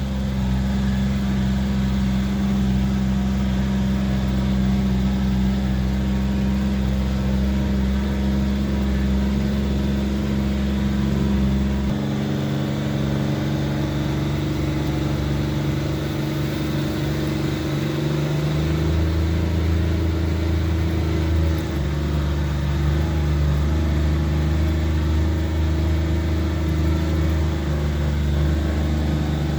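Kawasaki Mule side-by-side's engine running steadily under load while towing a loaded trailer. Its note shifts lower about twelve seconds in and changes again a few seconds later.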